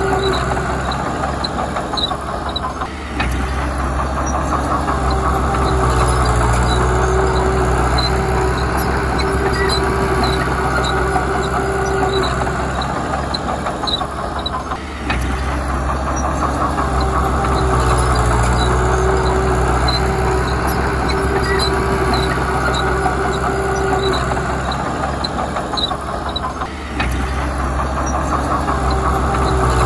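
The diesel engine of a Komatsu D31P crawler bulldozer working steadily under load, with light regular ticking over the drone. The sound eases briefly three times, about twelve seconds apart.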